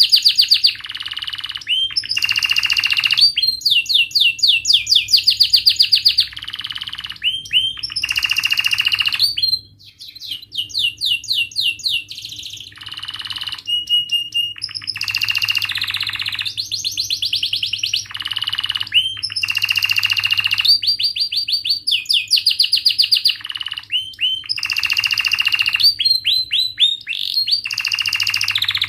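Domestic canary singing a long song of fast trills and rolls, quick runs of repeated high notes, with a brief pause about ten seconds in.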